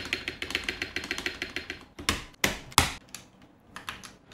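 Fast typing on a Zifriend ZA68 mechanical keyboard modded with polyfill case foam, a tape mod and PE foam: a quick run of key clicks for about two seconds, then three louder, heavier key strokes, a short pause and a few more clicks near the end.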